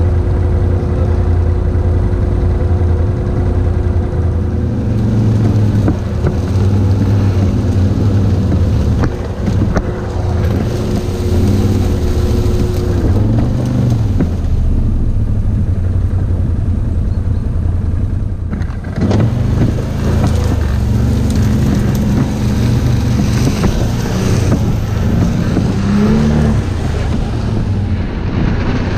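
Quad bike (ATV) engines running under load, the engine note rising and falling as the throttle is worked over rough ground.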